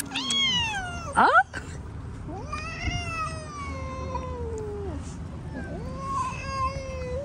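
Stray cat meowing again and again. A short meow comes first, then a sharp, loud cry about a second in, then two long, drawn-out meows that slowly fall in pitch.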